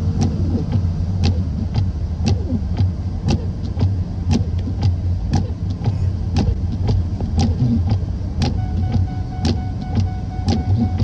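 Medium-duty diesel truck heard from inside the cab: a steady low engine rumble, with a sharp regular click about twice a second. A faint steady tone comes in near the end.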